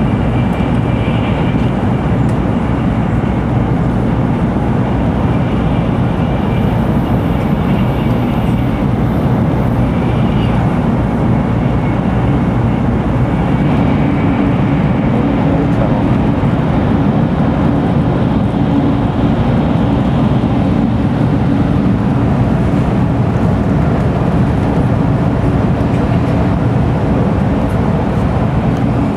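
Tokaido Shinkansen bullet train running at speed, heard inside the passenger car: a steady, loud, deep rumble of running noise, unbroken throughout.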